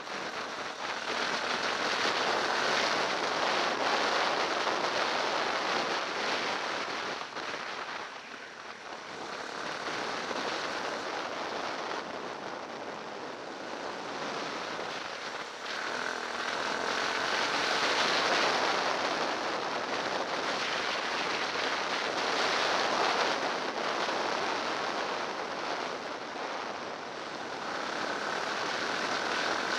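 Dirt bike riding fast along a loose gravel track: a steady rush of wind on the handlebar camera and tyres on the gravel, with the engine only a faint whine at times. The rush swells and eases with speed, dipping twice.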